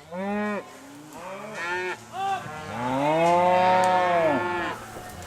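Cattle mooing and bawling as the herd is driven: several calls, some overlapping, with one long moo of about two seconds starting about halfway in.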